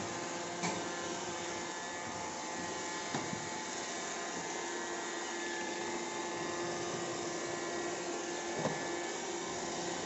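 iRobot Roomba 780 robot vacuum running a cleaning cycle: the steady whirring hum of its vacuum motor and brushes as it drives about, with a few light knocks.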